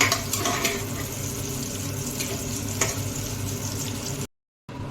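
Shallots and a dried red chilli frying in sesame oil in a pressure cooker pan, sizzling steadily while a spoon stirs them with occasional clicks against the metal. The sound cuts out abruptly for a moment near the end.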